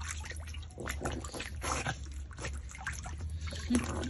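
Irregular splashing and lapping of shallow water as an otter rolls and dips its head in it, with a steady low hum underneath.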